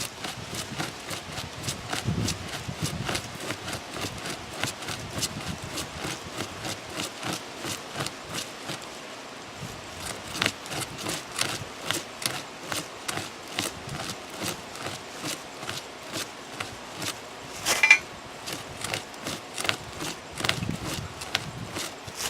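Sportsman pocket chainsaw, a hand-pulled chain saw with teeth that cut in both directions, sawing back and forth through a small pine trunk. It makes steady rasping strokes, about two to three a second, with one louder sharp crack near the end.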